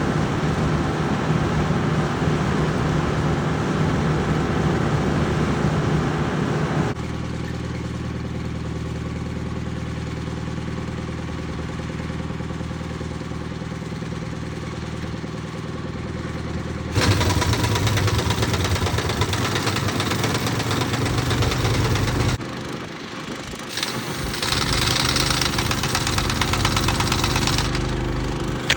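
Engine running steadily, with no words over it. The sound changes abruptly about 7, 17 and 22 seconds in and drops briefly near the 23-second mark, as between separate takes.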